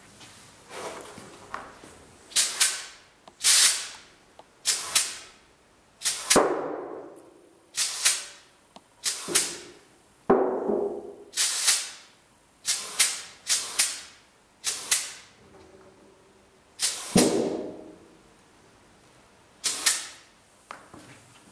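The welded sheet-metal shell of a pneumatic sculpture banging again and again as compressed air fed through a hose forces the metal outward. There are about a dozen loud, sharp bangs at irregular intervals, each with a short metallic ring.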